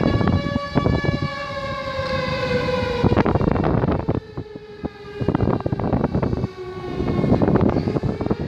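An alarm siren holding one long steady tone, its pitch sagging a little midway and climbing again near the end, sounding during a ship fire. Bursts of rushing noise come and go over it.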